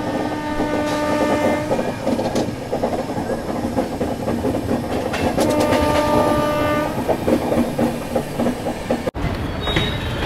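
Train horn sounded twice, each blast lasting about a second and a half to two seconds and about four seconds apart, over the steady rumble and clickety-clack of the moving train.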